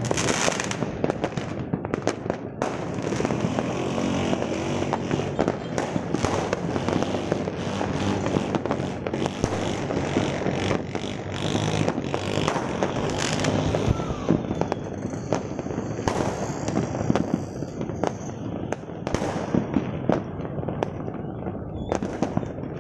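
Many fireworks and firecrackers going off at once: a dense, unbroken stream of overlapping pops, bangs and crackle with no pause.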